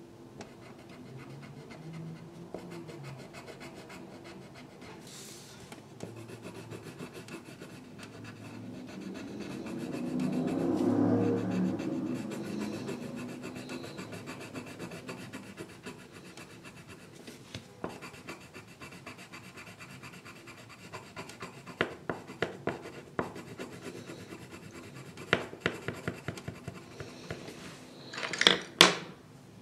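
A drawing tool scratching and rubbing on paper as a section is coloured in. A low swell of sound rises and fades about ten seconds in, and in the last third come a series of sharp clicks and taps, the loudest just before the end.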